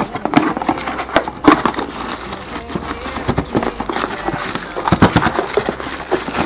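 A cardboard box being handled and opened by hand: its flap and sides rustling and scraping, with irregular clicks and several sharper knocks as the parts inside are pulled out.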